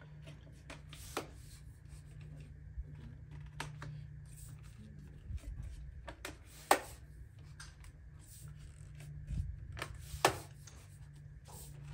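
Carbon-fibre tripod being unfolded and its legs extended by hand: a run of light clicks, taps and rubs from the leg sections and locks, with two sharper clicks about six and a half and ten seconds in. A steady low hum runs underneath.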